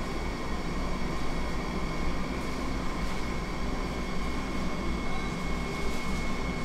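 A machine running with a steady low hum and a faint, even high whine.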